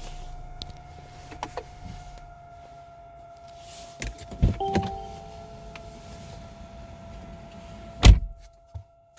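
A steady fan-like whine from behind a Mercedes-Benz's centre dashboard after driving, a noise the owner calls wheezing. A low rumble fades out about two seconds in, a few clicks and clunks come around four to five seconds in, and a loud thump lands about eight seconds in.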